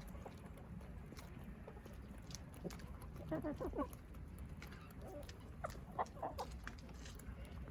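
Chickens clucking: short calls in two clusters, one about halfway through and another a couple of seconds later, over a steady low rumble and scattered small clicks.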